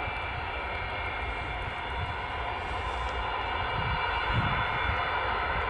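Antonov An-124's four D-18T turbofan engines running at taxi power: a steady whine over a low rumble, growing a little louder about four seconds in.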